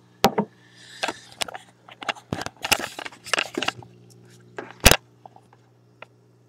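Handling noise from a webcam being picked up and repositioned: a run of sharp knocks, clicks and rubbing against the microphone, the loudest knocks about a quarter second in and just before five seconds, over a steady low hum.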